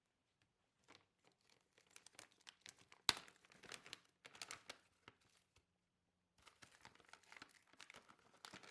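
Packaging crinkling and tearing as it is opened by hand, in two spells of rustling with a short pause between. A sharp snap about three seconds in is the loudest sound.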